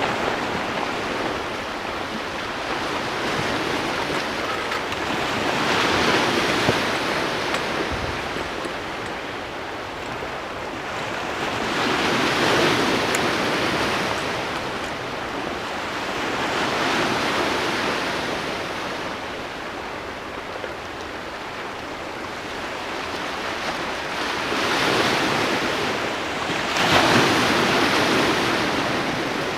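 Sea waves washing and breaking, a steady rush of water noise that swells and falls back every few seconds.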